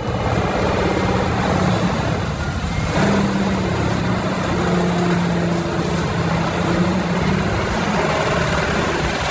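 Vermeer HG6800TX tracked horizontal grinder running under load: a heavy engine note that steps up and down in pitch, over a steady dense rushing noise.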